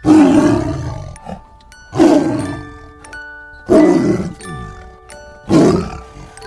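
A tiger roaring four times, about every two seconds, each roar starting loud and fading off.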